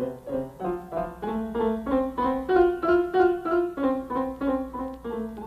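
Piano music, a brisk run of single notes and chords at about four notes a second, swelling louder in the middle.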